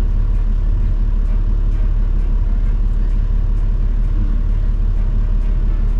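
Toyota Land Cruiser 70's diesel engine idling steadily at a standstill, a low, even rumble heard from inside the cabin.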